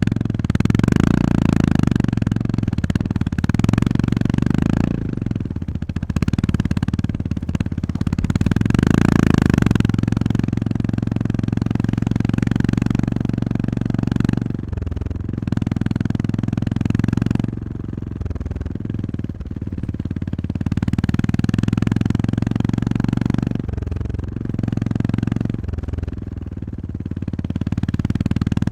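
Honda GB350S's air-cooled single-cylinder engine running under way, its level swelling and easing off several times as the throttle is opened and closed.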